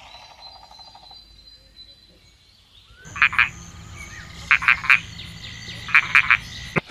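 Croak-like sound effect: short, sharp calls in three clusters of two or three, about a second and a half apart, over a low steady hum.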